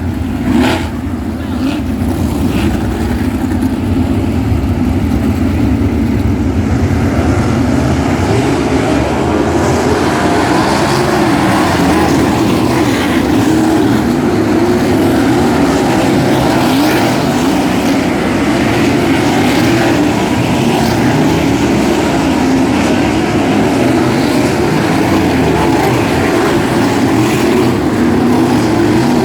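A field of 360 sprint cars racing on a dirt oval, their 360-cubic-inch V8 engines running together in a steady, unbroken drone.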